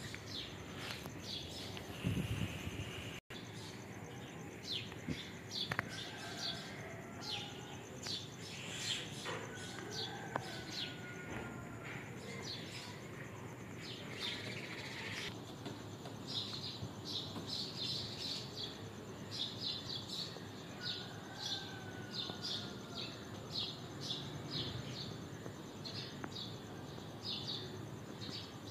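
Small birds chirping, short high chirps repeating several times a second throughout, over a steady outdoor background. A brief low rumble comes about two seconds in.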